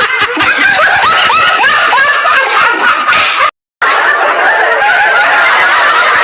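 High-pitched laughter, loud and continuous, made of many short rising 'he-he' fragments, cutting out abruptly for a moment about three and a half seconds in.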